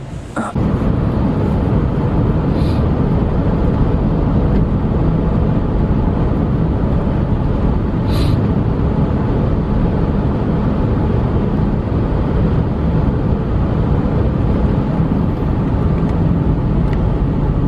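A car driving, heard from inside the cabin: a loud, steady rumble of road and engine noise that cuts in suddenly about half a second in.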